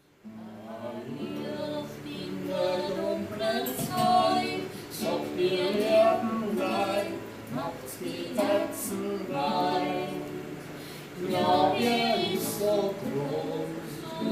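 A group of voices singing together, mostly women's voices.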